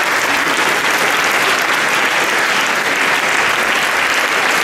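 Large audience applauding, a dense steady clapping that holds at one level.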